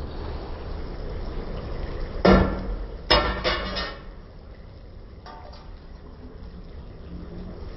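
Metal clanking against a large iron karahi: two loud, ringing clanks a little over two and three seconds in, then a lighter clink, over a steady low rumble.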